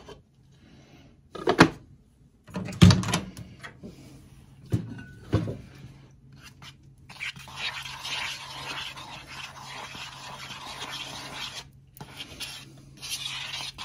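Several sharp clicks and knocks from handling an essential-oil diffuser and its cover on a tiled counter. About halfway in, a steady rough hissing rustle follows and drops out briefly near the end.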